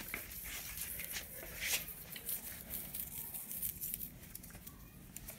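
Shiny plastic tinsel cat teaser being dragged and flicked across a stone floor: scattered crinkly rustles and light scrapes, with a louder rustle a little under two seconds in.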